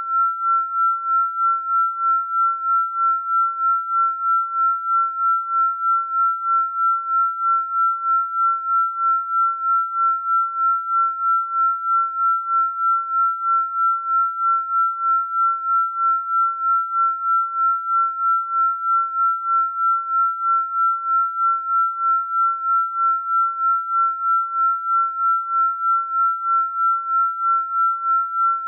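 Electronically generated pure sine tone held at one steady high pitch, pulsing evenly in loudness a few times a second: a binaural-beat meditation tone.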